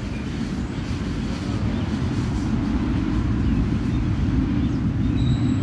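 Steady low rumble of outdoor background noise with no distinct events, turned up loud.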